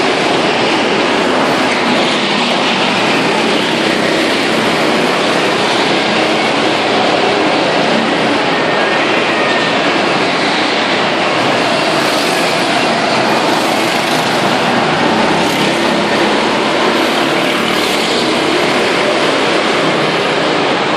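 Go-kart engines running as karts lap an indoor track, a loud steady din with no single engine standing out, heard across the enclosed hall.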